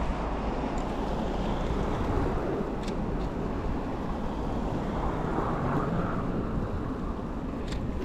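Wind buffeting the microphone over a steady rumble of city street traffic in a snowstorm, with two faint clicks, one about three seconds in and one near the end.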